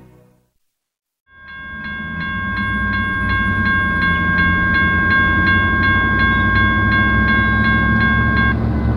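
Railroad grade-crossing bell ringing about three times a second over the low rumble of an approaching diesel locomotive. The sound fades in after a moment of silence, and the bell stops near the end while the locomotive rumble carries on.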